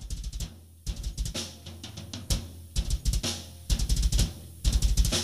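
Metal drum kit playing a drum-led passage: sharp snare and cymbal hits with runs of fast kick-drum strokes, over a low held note.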